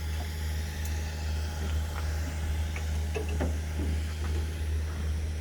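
Steady low drone of an idling engine, with a few faint clicks over it.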